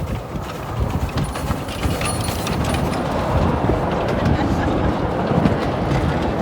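Miniature railway train running, a steady rumble with faint clicks, mixed with wind buffeting the microphone.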